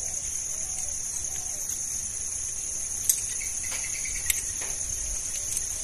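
Steady, high-pitched insect chorus at two pitches. About halfway through, two sharp clicks come about a second apart.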